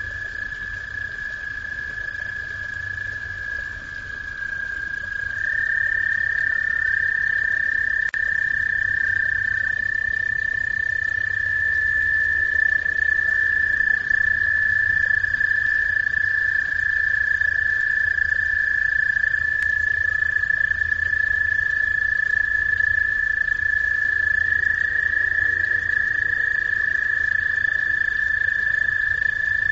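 A chorus of pond frogs trilling: several long, steady high trills at slightly different pitches overlap without a break, getting louder about six seconds in.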